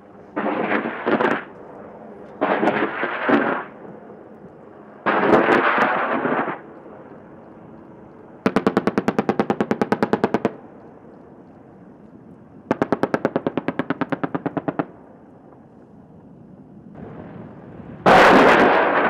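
AH-64 Apache's 30 mm M230 chain gun firing a series of bursts; the clearest two last about two seconds each, with about ten rounds a second. A louder, denser burst comes near the end.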